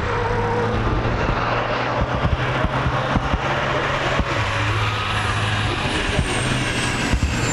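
The diesel engine of a 2008 Freightliner Cascadia semi truck running hard as it climbs the mountain road, a steady low hum with rough noise and a few short knocks. A thin high whine falls slowly in pitch over the last couple of seconds.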